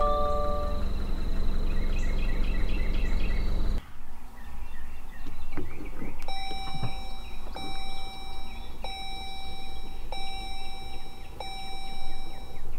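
A Subaru's engine idling with a steady low hum, which cuts off about four seconds in. Then, with no engine running, a Chrysler's dashboard chime sounds five times, about a second and a quarter apart, as the car comes ready to drive.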